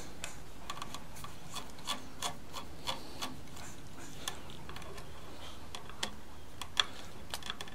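A screwdriver tightening the terminal screw on a light switch, with small irregular clicks and light scraping of metal on metal.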